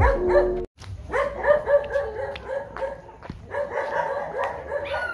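A dog barking repeatedly: short barks in quick runs of about four a second, starting about a second in, with a pause of about a second a little past halfway.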